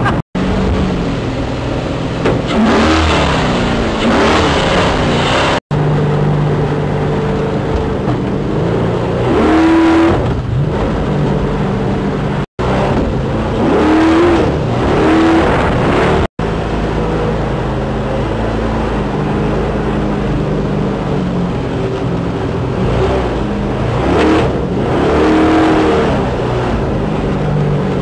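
Jet boat engine running at speed, revving up and down, with water rushing past the hull. The sound breaks off for an instant a few times.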